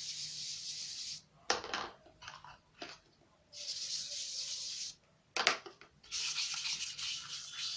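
Toy kitchen set hissing in three bursts of about a second and a half each, with light plastic clicks and knocks between them.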